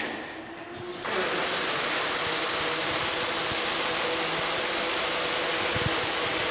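Two robotic wire-feed (MIG) welding torches strike their arcs about a second in, then a steady, even welding hiss as they weld pallet-rack load beams.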